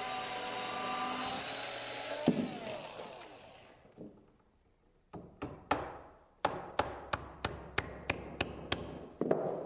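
Electric drill running steadily with a nail chucked as the bit, boring a pilot hole through a mitred wooden riser into the skirt board, then stopping and spinning down after about two seconds. After a short pause, a hammer drives a nail into the joint with about a dozen quick, even taps, about three a second.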